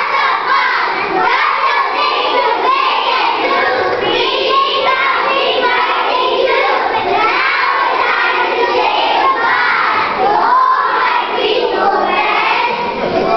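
A group of preschool children singing together.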